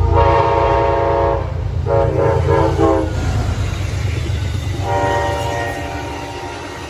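Locomotive air horn sounding three blasts: a long one, a shorter wavering one, then a weaker longer one that fades out near the end. The train's low rumble runs underneath.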